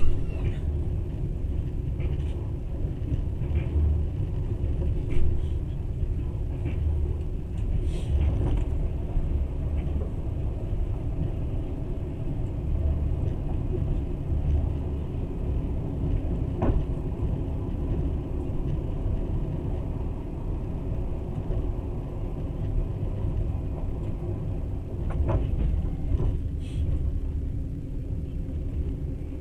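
Passenger train running, a steady low rumble of wheels and carriage on the track, with a few short clicks here and there.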